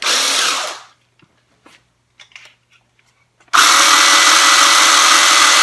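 Kimo 20V cordless pole chainsaw's electric motor and chain running with no load, triggered twice. First a short burst that winds down within a second; then, after a pause with a few faint clicks, a longer steady run with a constant whine from about halfway through.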